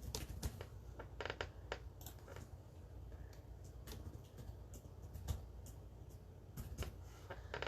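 Irregular light clicks and taps of computer keyboard keys and a mouse, a dozen or more sharp clicks at uneven spacing.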